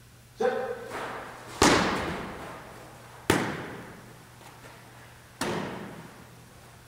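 Four sharp thuds over about five seconds, each echoing for about a second in a large hall; the second and third are the loudest, and the first carries a brief ringing tone.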